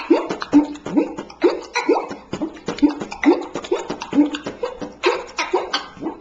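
Beatboxer's vocal percussion: a rhythmic string of short mouth pops, about two a second, each rising quickly in pitch like a water drop, with sharp clicks between them.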